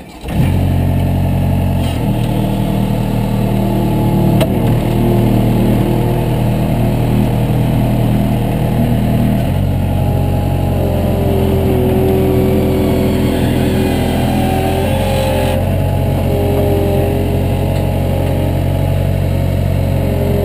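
Heavy equipment engine running steadily after coming in suddenly, its pitch shifting a couple of times, with higher wavering tones joining in the second half.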